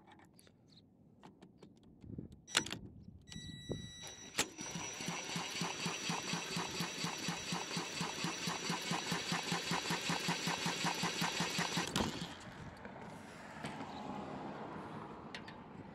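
A Hart cordless impact gun spins over a Honda GX big-block single-cylinder engine by its flywheel nut for about seven seconds: a fast, even hammering with a steady whine that stops suddenly. A few clicks come before it starts. The engine turns over without firing, because the ignition is giving no spark.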